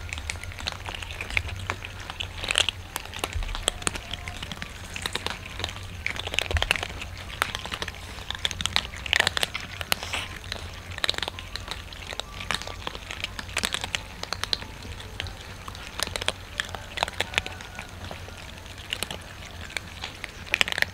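Several cats crunching dry kibble. It is a dense, irregular run of sharp crunches and clicks from many mouths at once.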